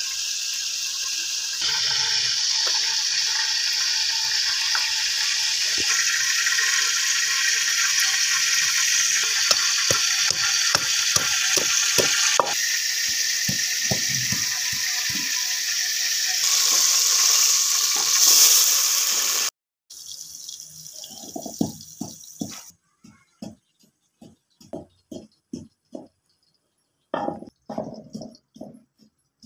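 A loud, steady sizzle of food frying in a pot, with dull thuds of a wooden pestle pounding in a clay mortar joining in partway through. About two-thirds of the way in, the sizzle stops abruptly and only the pestle thuds remain, at roughly two a second.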